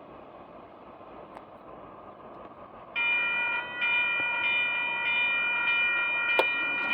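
Locomotive air horn of a Union Pacific GE ET44AH sounding about three seconds in: a loud chord of several steady notes, broken briefly once, then held. Before it, a steady noise of the oncoming train.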